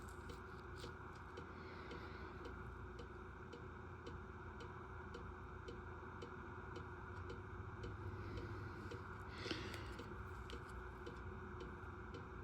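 Clock ticking steadily, about two ticks a second, faint over a low steady hum, with one slightly louder click about three-quarters of the way through.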